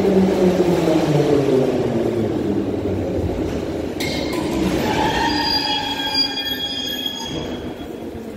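81-540.2 metro train braking into the station: the motor hum falls in pitch as it slows, then from about halfway through a high squeal rises as it comes to a stop and dies away near the end.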